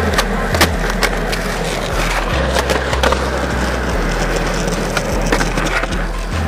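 Skateboard wheels rolling on a hard court, with several sharp clacks of the wooden board, the loudest about half a second in. Background music with a bass line plays underneath.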